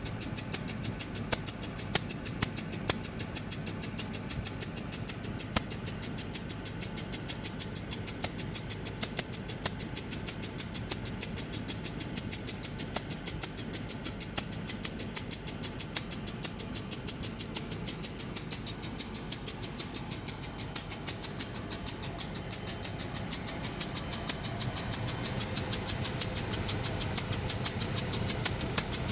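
2003 Land Rover Discovery engine running with a rapid, even clicking that repeats steadily and does not change. The cause of the click is unknown to the owner.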